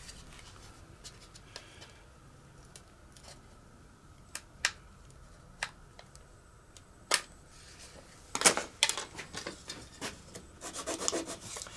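Thin plastic moulding being handled and flexed: scattered light clicks and taps, then a busier stretch of clicking and rubbing about eight seconds in.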